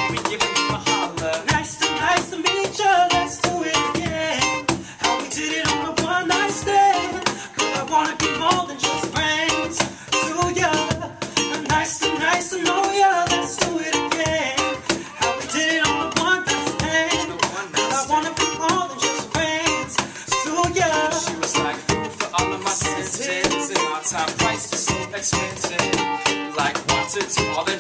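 Live acoustic music: a strummed ukulele and a hand-played cajon beat under a man singing into a microphone.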